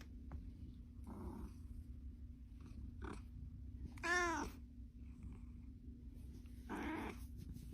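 A domestic cat meowing: one clear, rising-then-falling meow about four seconds in, with fainter calls about a second in and near the end, over a low steady purr.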